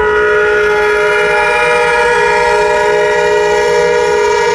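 Diesel locomotive air horn sounding one long, steady blast: a chord of several notes that starts abruptly.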